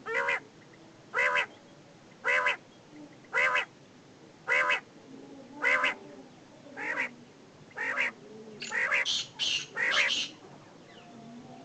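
Quail (desi batair) calling: a short arched note repeated evenly about once a second, eight times, then a quicker run of higher calls before it stops.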